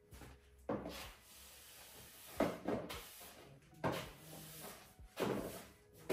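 Broom and long-handled dustpan bumping and scraping on the floor while sweeping: about five sharp knocks at uneven intervals.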